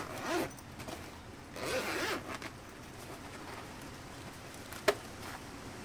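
Zipper of the drone's carrying bag being pulled open in two short pulls, with handling rustle and a single sharp click near the end.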